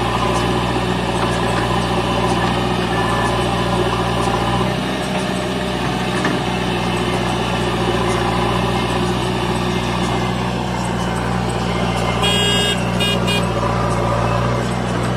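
Diesel engine of a JCB backhoe loader running steadily with a low, even drone; its note shifts slightly about five seconds in.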